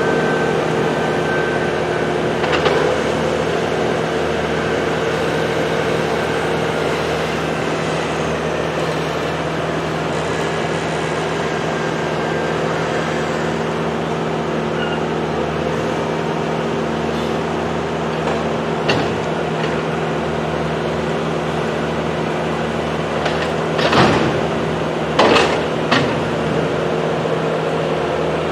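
A large engine running steadily at constant speed, with a few sharp knocks, most of them clustered near the end.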